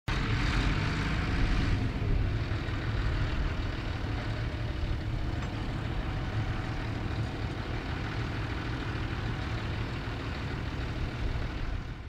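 Diesel engine of a County four-wheel-drive tractor running steadily under load while pulling a mounted reversible plough through stubble. A deep, even rumble, with a brighter rush of noise in the first couple of seconds.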